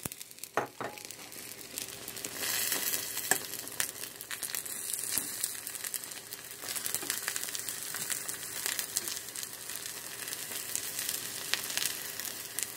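An egg-white omelet with chopped vegetables sizzling in a pan, a steady frying hiss. Short clicks and scrapes come from a fork stirring the egg yolks across the pan.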